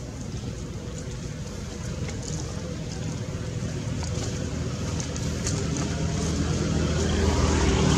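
A motor vehicle's engine running with a low, steady hum that grows gradually louder toward the end, as if coming closer.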